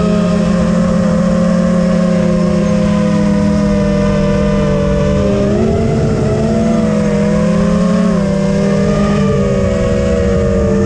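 FPV quadcopter's brushless motors (Lumenier JB2208 2400kv) spinning 5-inch DALPROP Cyclone props in flight: a loud multi-tone whine, steady at first, whose pitches waver and bend up and down from about five seconds in as the throttle changes. Wind rumbles on the onboard microphone underneath.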